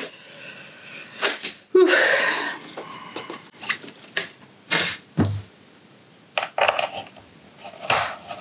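Hard plastic cover pieces of a RoboRock S50 robot vacuum being handled: a run of clicks, knocks and clatter as a top cover piece is lifted off and set down, with a heavier thump about five seconds in.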